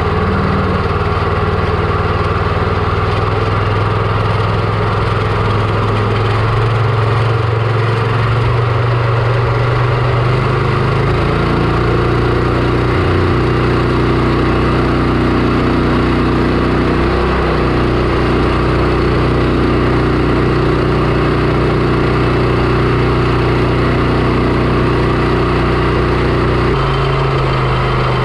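Predator 420cc 13 hp single-cylinder engine of a longtail mud motor running steadily and loudly, its note changing about eleven seconds in and again near the end.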